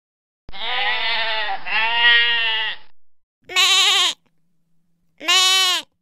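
Sheep bleating: one long, quavering baa, followed by two shorter bleats.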